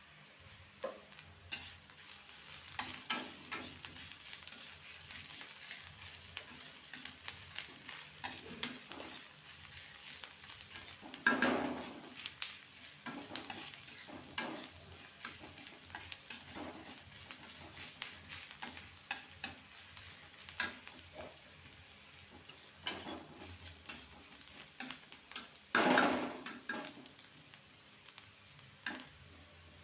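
Food sizzling as it fries in a pan while a spatula stirs and scrapes it, with irregular clicks of the spatula on the pan and two louder scrapes, one about a third of the way in and one near the end.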